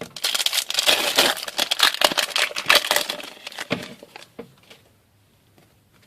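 Foil hockey card pack wrapper crinkling and tearing as it is ripped open, a dense run of crackles for about four seconds that then dies away.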